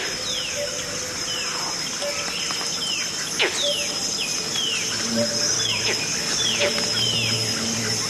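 Whistled human imitation of a crowned eagle's call: a run of short, falling whistles, with one longer, louder swoop about a third of the way in. A steady high chorus of rainforest insects runs underneath.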